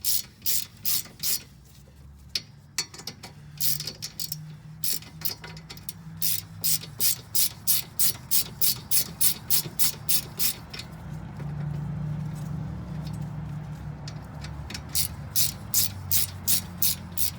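Geared ratchet with a 17 mm socket clicking in quick runs of strokes, about three clicks a second, as a front strut bolt is worked out. There are pauses between the runs.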